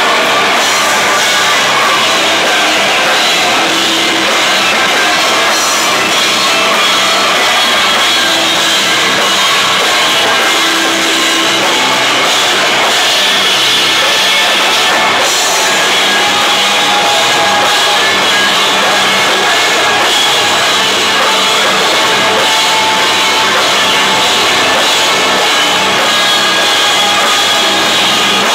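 Rock band playing live and loud, the drum kit and crashing cymbals prominent in a dense, steady wall of sound.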